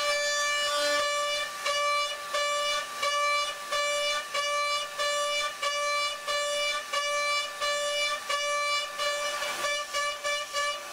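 Background music: a held electronic tone with many overtones, breaking into a steady pulse about twice a second after the first second and a half.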